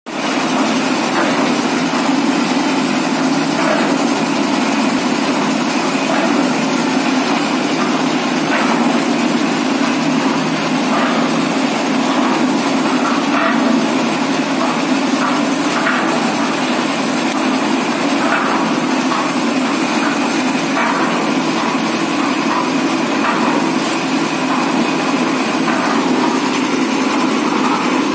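Diesel-engine concrete mixer machine running steadily at an even pace, with a few light irregular rattles over the engine note.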